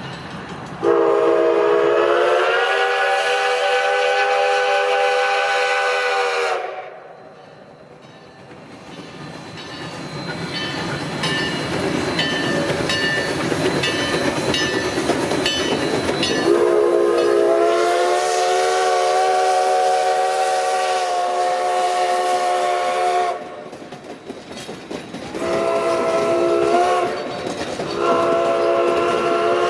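Steam locomotive whistle sounding the grade-crossing signal: two long blasts, a short one, then another long one. Each blast is a chord of several notes that swells up in pitch as it opens. Between the blasts comes the rushing and clatter of the passing train.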